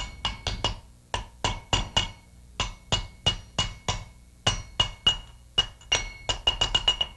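Ball-peen hammer lightly tapping on an old metal seal seat, used as a driver to seat a new lip seal in the head of a Corken Z-model sliding-vane pump. A quick series of light metal taps, a few a second, each with a short ring, coming faster near the end.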